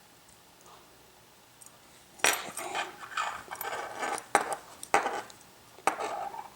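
Metal parts of a disassembled padlock being handled: a run of sharp clicks, knocks and clatter, starting about two seconds in.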